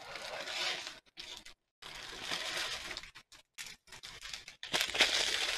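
Thin plastic bags of diamond-painting drills crinkling as they are handled, in three bursts with small clicks in between.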